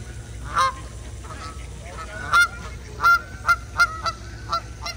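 Waterfowl calling: about eight loud, short calls, one about half a second in and the rest in a quick run over the last three seconds.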